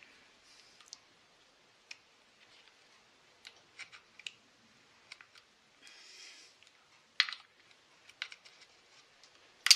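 Small pliers clicking and scraping against twisted wire and the metal choke-lever linkage of a Husqvarna 380CD chainsaw: irregular sharp clicks with a brief scrape in the middle and the loudest click near the end.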